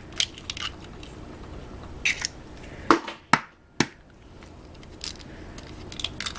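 Store-bought hen's eggs being cracked open over a glass mixing bowl: several short, sharp taps and shell cracks, scattered through, with another cluster near the end as the next egg is broken.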